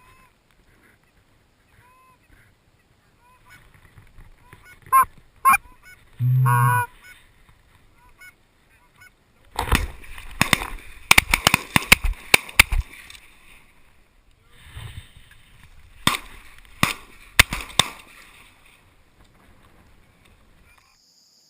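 Canada geese honking, a few calls at first and a loud one about six seconds in, then a rapid volley of shotgun blasts from several guns about ten seconds in, with three or four more shots a few seconds later.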